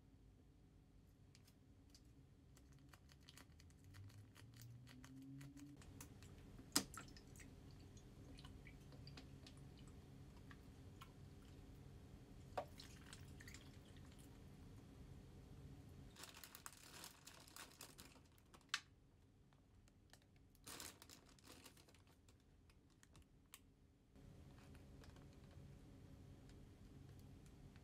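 Quiet cooking sounds: sharp clicks and taps, packaging rustling, and water poured from a plastic bottle into a foil pan, over a low rumble.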